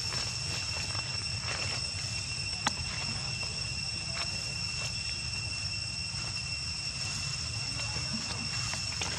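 A steady high-pitched whine in two even tones over a constant low rumble, with one sharp click a bit under three seconds in.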